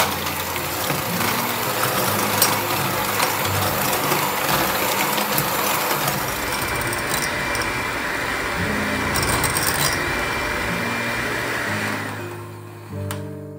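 Electric hand mixer running, its beaters whisking batter in a glass bowl, with a steady whirring noise that fades out about a second before the end. Background guitar music plays underneath.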